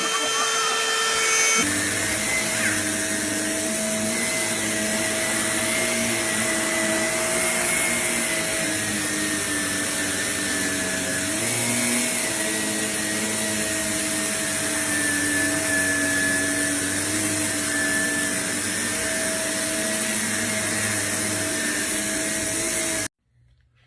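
A motor-driven appliance running steadily with a whine, cut off abruptly near the end.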